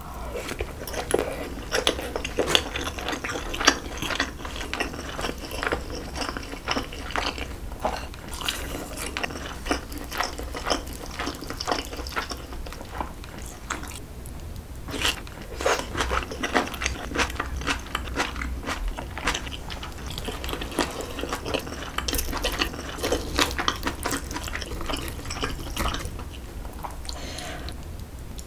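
Close-miked wet chewing of braised kimchi and rice, full of small mouth clicks and squelches, with a short lull about halfway through.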